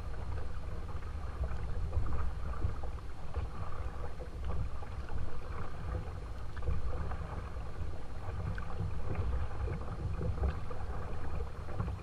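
A kayak moving on a calm river, with water trickling and splashing along the hull under a low rumble of wind on the camera microphone.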